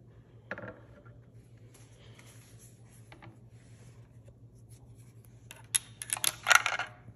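Tikka T3X bolt-action rifle's bolt being worked as a 22-250 cartridge is loaded: a single small click about half a second in, then a quick run of sharp metallic clicks and scrapes near the end. A faint steady hum lies underneath.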